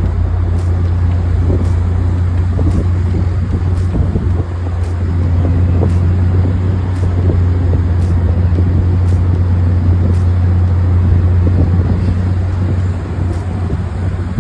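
Heavy machinery running with a steady, loud low drone, easing off slightly near the end.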